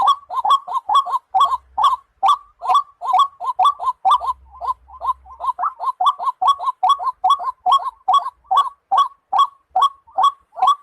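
White-breasted waterhen (dahuk) calling: a long, even series of short, hoarse notes, about three a second, repeated without a break.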